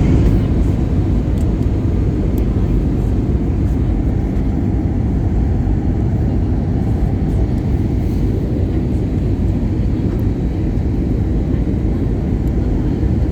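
Steady low rumble of engine and airflow noise inside the cabin of an Airbus A320neo in flight.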